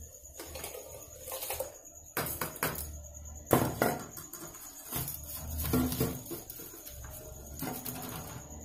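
Metal kitchenware clinking and knocking: a steel bowl against an aluminium rice pot as washed rice is tipped into the boiling rice water, with several separate knocks, the loudest about three and a half seconds in.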